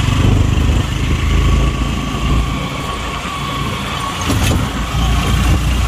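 Engine and road noise of a moving motor vehicle heard from inside it: a steady low drone with a faint steady whine above it.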